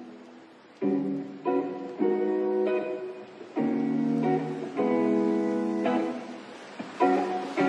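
Background music: a guitar strumming chords, a new chord roughly every second.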